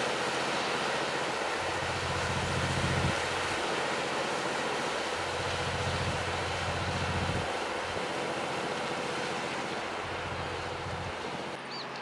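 The outboard motor of a rigid-inflatable patrol boat running at speed in a low drone that swells three times, over a steady wash of wind and water noise, growing slightly fainter near the end as the boat moves away.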